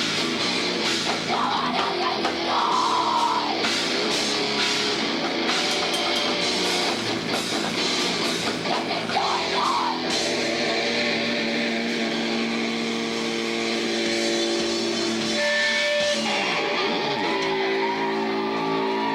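Live heavy rock band playing loud distorted electric guitars over a drum kit. Near the end the drums and cymbals drop away and the guitars ring on held notes.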